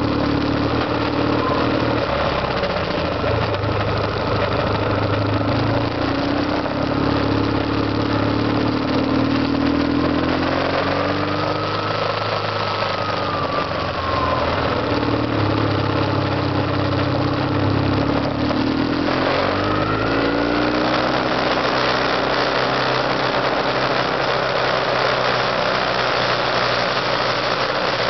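BMW R1150GS boxer-twin motorcycle engine running while riding, its note falling and rising with road speed: it drops about halfway through, climbs again, then settles lower. A steady rushing of wind and road noise runs under it.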